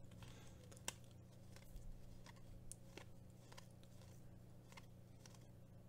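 Near silence: faint soft clicks of a stack of Mosaic soccer trading cards being flipped through by hand, the sharpest about a second in, over a low steady hum.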